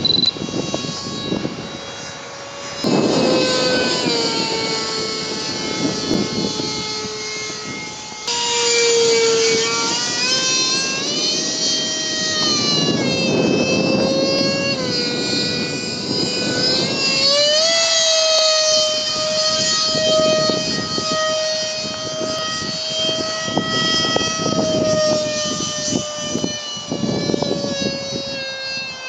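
64 mm electric ducted fan of an RC F-16 model jet, spun by a 5800KV brushless motor, whining in flight overhead. The whine shifts in pitch with throttle and passes, stepping up sharply about eight seconds in, climbing again past halfway and falling away near the end.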